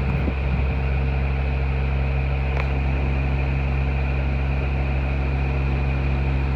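Boat engine running steadily at cruising speed, heard from on board: a constant low drone with a thin, steady high whine above it.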